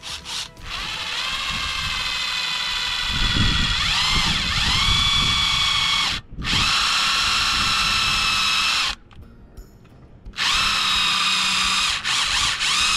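Cordless drill drilling out the rivets in a metal seat pedestal: a steady motor whine in three runs, stopping briefly about six seconds in and for over a second about nine seconds in. Around four seconds in the pitch dips and recovers as the bit bites into the rivet.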